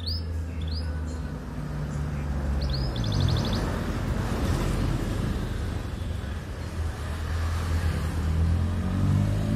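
A motor vehicle's engine running close by, a low hum whose pitch dips and rises a few seconds in and swells again near the end. Over it a pet canary gives a few short rising chirps and one brief buzzy trill early on.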